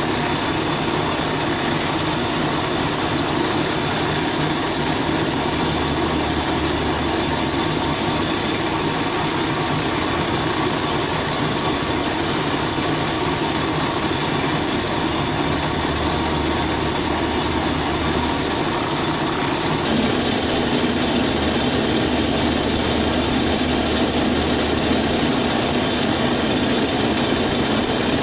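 A small engine running steadily. Its note shifts and it gets slightly louder about twenty seconds in.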